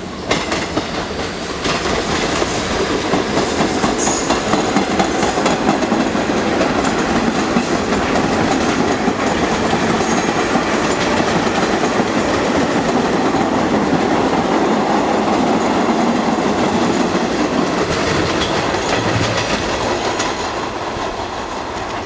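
Vintage New York City subway train of mixed-era cars (R16, R34, R38, R40 slant and R42) passing through a station at speed without stopping: a loud, steady rumble and clatter of wheels on the rails, with brief high wheel squeals in the first few seconds, easing off slightly near the end.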